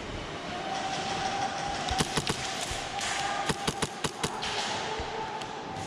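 Scattered sharp snaps of airsoft gunfire: three about two seconds in, then a quicker run of about six near the middle, over a steady hum.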